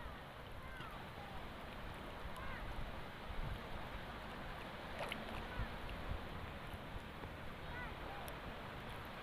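Steady wash of wind and water around a small fishing boat on a calm sea, with low rumble on the microphone. A few faint short chirps come through, and there is one sharp knock about five seconds in.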